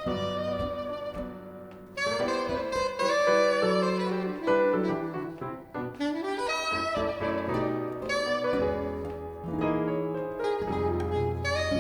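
Soprano saxophone playing a jazz line over piano accompaniment, with walking bass notes underneath and a short upward slide about six seconds in.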